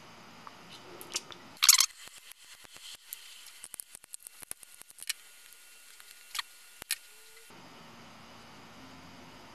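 Small flush cutters snipping resin support struts off an SLA-printed part: a loud snap about two seconds in, then a run of small clicks and a few sharper snips.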